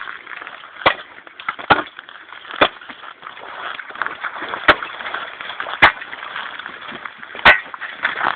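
Axe chopping: six sharp blows spaced irregularly, about one to two seconds apart.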